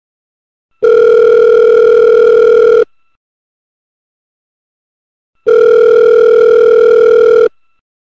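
Telephone ringing with a steady electronic tone: two rings, each about two seconds long, the first starting about a second in and the second about two and a half seconds after the first ends.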